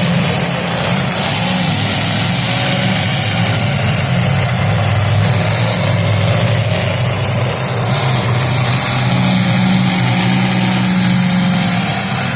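Demolition derby car engines running together in a loud, steady drone, with some revving and no distinct crash.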